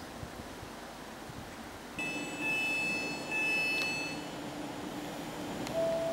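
Wind and rain noise, then from about two seconds in an approaching locomotive with a steady low hum and a high whistling tone for a couple of seconds; its horn starts to sound right at the end.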